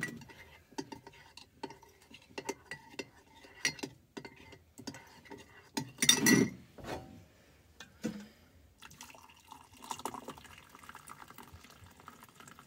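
A teaspoon stirring and clinking in a ceramic mug, mixing cocoa-and-spice powder with a little water into a thick paste, with a louder clunk about six seconds in. Near the end, hot water from a kettle is poured into the mug.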